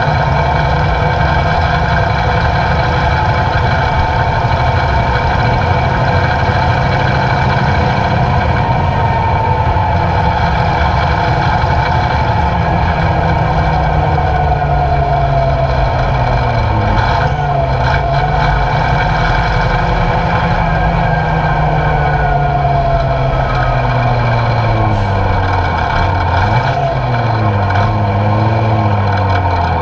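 Diamond T 980 truck's Hercules six-cylinder diesel engine running under way. The engine speed dips and climbs again twice, once about halfway through and once near the end.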